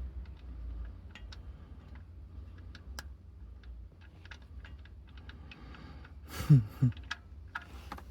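Scattered light clicks and taps of hands handling tools and parts, with two louder thuds about six and a half seconds in.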